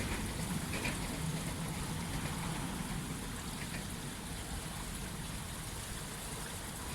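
Steady rain falling, an even hiss, with a low rumble from a passing train fading away over the first couple of seconds.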